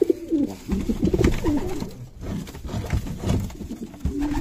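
Homing pigeons cooing at close range in a wooden nest box, with a few low knocks as the clay nest bowl is handled.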